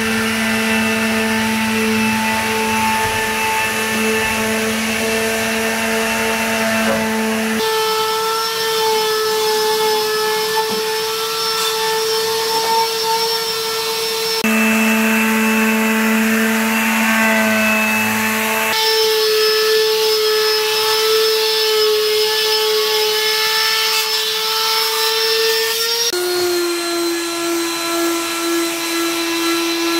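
Electric orbital finishing sander running on birch plywood: a steady motor hum with a rasping pad. Its pitch and tone jump abruptly several times, with the last jump near the end lowering the hum.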